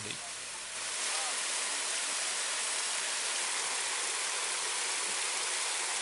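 Bigăr waterfall's water falling in thin streams from a mossy travertine overhang into the pool below, a steady rushing splash that gets louder about a second in.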